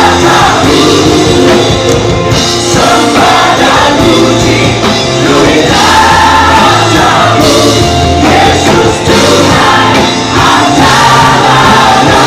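Christian gospel song sung by a group of voices in harmony over a full band accompaniment.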